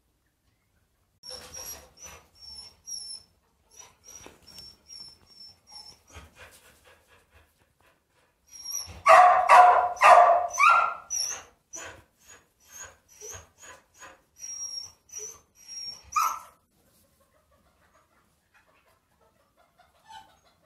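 A dog barking: a run of short barks, then about four loud barks in quick succession about nine seconds in, and a last one near sixteen seconds.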